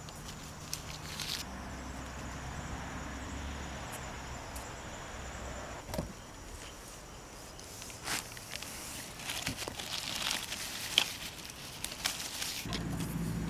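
Rustling with scattered small clicks and crackles as hands work at a bamboo stake and among low ground-cover plants, busiest in the second half.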